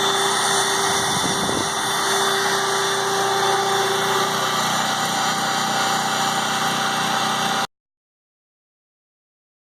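PowerIt 3800 W generator's 7 hp four-stroke gas engine running steadily on months-old gasoline, burning the stale fuel out of the carburetor. The sound cuts off abruptly to dead silence about three-quarters of the way through.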